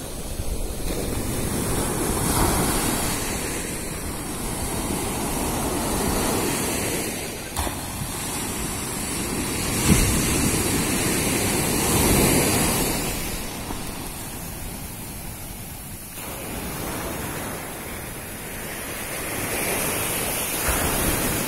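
Sea surf breaking and washing up on a sandy beach, swelling and fading every few seconds.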